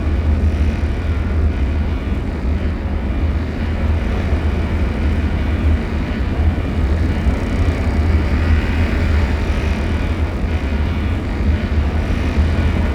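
Horror ambience sound effect: a loud, steady, deep rumbling drone with a rushing noise above it, and no distinct hits or events.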